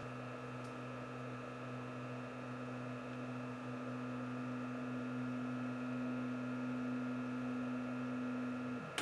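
LaserStar 7601-MFX fiber laser welding system humming steadily as it runs a motion-controlled pass, its tones holding level and then winding down just before the end, followed by a sharp click.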